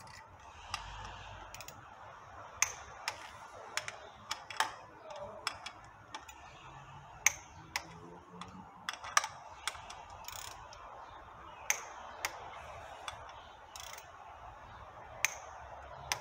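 Irregular sharp metallic clicks and clinks, several much louder than the rest, from a wrench and pulley holder as the water pump pulley bolts on a Toyota 2GR-FE V6 are tightened to torque.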